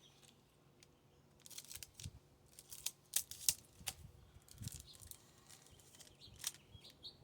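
Trading cards being handled: a few short, faint papery snaps and rustles as cards are flipped through, with small bird chirps near the end.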